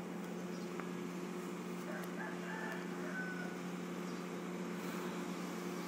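Steady low electrical hum with hiss: background noise of the recording room or microphone. A few faint short chirps come through about two to three seconds in.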